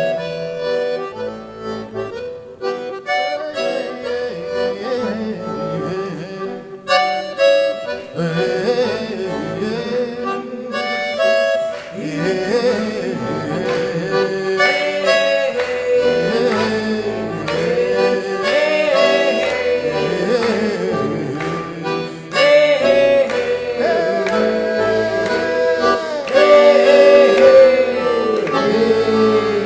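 Instrumental break of a song, led by accordion, with a melody line that slides and bends in pitch in the second half.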